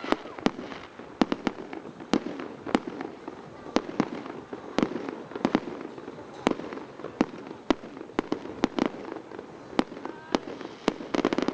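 Fireworks display: a rapid, irregular string of sharp bangs from bursting shells, about two or three a second.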